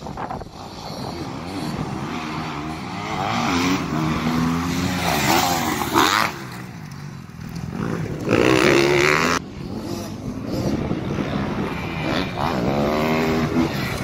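Dirt bike engines revving and passing, rising and falling in pitch, with a loud burst of throttle about eight seconds in that cuts off suddenly after about a second.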